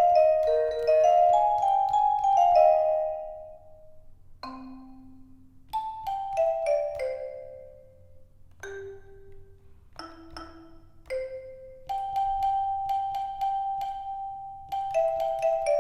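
Melodic notes played on the EASYPLAY 1s keyboard with a mallet-percussion-like sound preset. Each note is struck and rings out. A quick run opens the passage, several falling runs follow after a short gap, and one note is held for a few seconds near the end.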